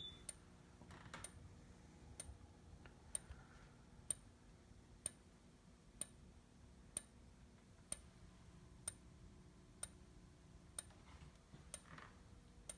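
Faint clicks about once a second from a fire alarm strobe still flashing, because the panel has not yet finished resetting.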